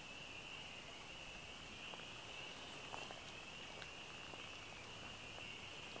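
Faint, steady high-pitched chorus of calling frogs from the wetland, an unbroken trill, with a few soft ticks over it.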